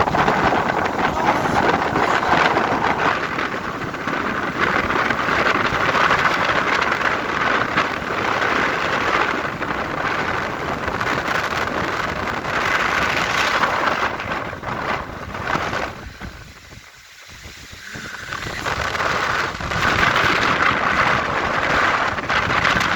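Strong snowstorm wind blowing steadily against the microphone as a dense rushing noise. It drops away briefly a little past the middle, then gusts back up.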